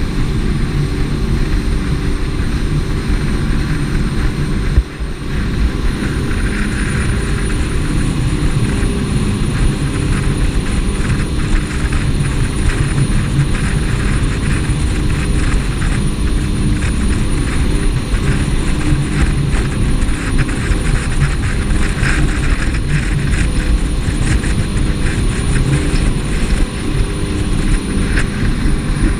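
Jet boat engine running steadily at speed, a continuous loud drone with rushing noise above it, briefly dipping about five seconds in.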